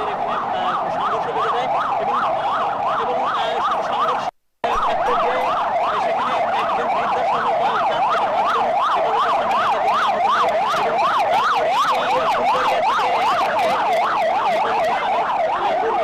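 Emergency vehicle siren in a fast yelp, its pitch swinging up and down about three times a second, with a momentary dropout about four seconds in.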